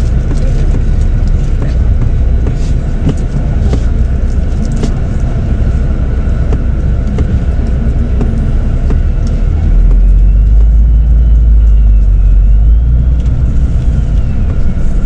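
Coach's diesel engine running, heard from inside the coach, with light rattles. About ten seconds in, the low rumble grows louder and a faint wavering whine rises above it.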